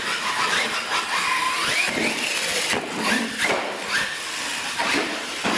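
Electric motor of a radio-controlled monster truck whining, its pitch rising and falling several times as the throttle is blipped and released.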